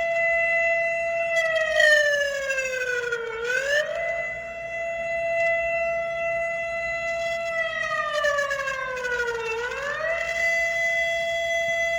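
Turkish emergency alert alarm: a loud, steady, siren-like tone that twice slides slowly down in pitch over about two seconds and then sweeps quickly back up to its held note.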